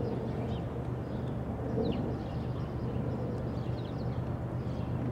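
Outdoor background ambience: a steady low rumble with a few faint, short high chirps scattered through it.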